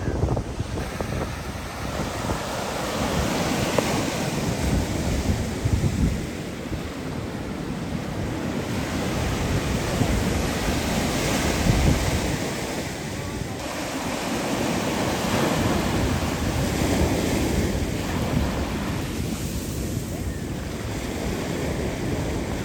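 Surf washing on the shore, swelling and easing every few seconds, with wind buffeting the microphone as a low rumble.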